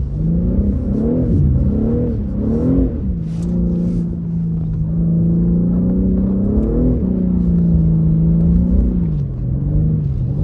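BMW car engine heard from inside the cabin while driving in the snow. It revs up and down several times in the first few seconds, then holds a steady pitch, with a short rise about seven seconds in and a dip near nine seconds.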